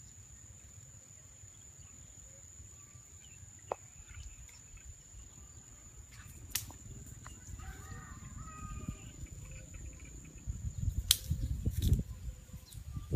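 A steady high-pitched insect drone runs under low rumbling outdoor noise. Several sharp clicks are scattered through it, and a cluster of louder low thumps comes in the last few seconds.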